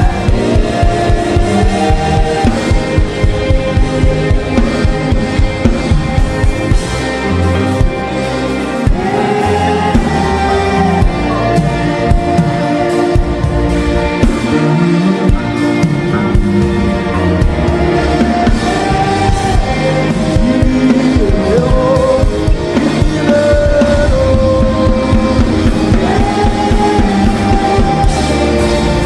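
Gospel worship music: held keyboard chords and a steady drum beat, with voices singing long, gliding lines over them.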